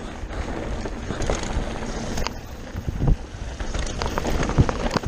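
Mountain bike descending a loose dirt and gravel trail at speed: tyres rolling over the rough ground and wind buffeting the microphone, with several knocks and clatters from the bike over bumps, the sharpest about four and a half seconds in.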